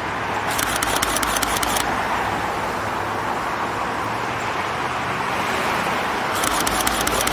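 Steady road traffic noise from passing cars. Two short stretches of fast high-pitched crackle break in, about half a second in and again near the end.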